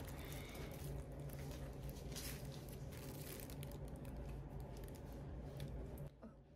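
Faint handling sounds of wooden chopsticks working in a paperboard takeaway box, with light crinkling of plastic bags, over a steady low hum that drops away near the end.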